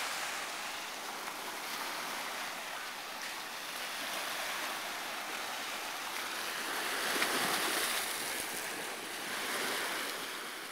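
Ocean surf washing up over a black sand beach, a continuous hiss of water that swells louder about seven seconds in and again near the end.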